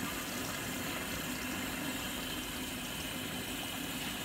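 Potato naan deep-frying in hot ghee in a karahi: a steady sizzling, with a low steady hum underneath.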